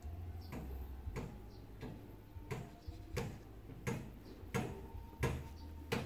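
Steady, evenly spaced ticking, about three ticks every two seconds, over a low steady hum.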